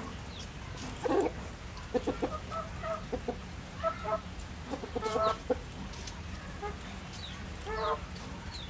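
About ten short animal calls at irregular intervals, with a few faint high falling chirps, over a steady low hum.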